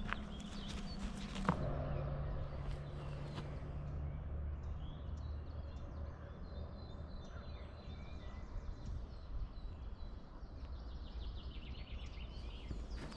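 Birds chirping over a steady low background noise, with a few footsteps on a dirt path in the first second or so.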